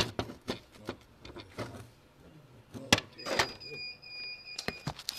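Handling noise from a phone being moved about: irregular knocks, clicks and rubbing, the sharpest at the start and about three seconds in. A steady high electronic beep sounds for about a second and a half past the halfway point.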